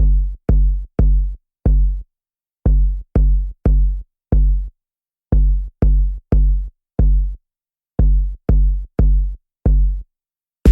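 Electronic drum-machine beat with deep bass-drum hits and nothing else playing: a figure of four hits, three evenly spaced and the fourth a little later, repeated four times with short silent gaps.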